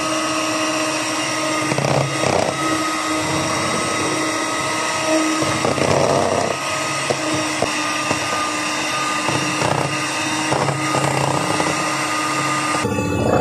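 Electric hand mixer running steadily, its beaters whirring through all-purpose cream in a plastic bowl as the cream is whipped. Its sound changes near the end.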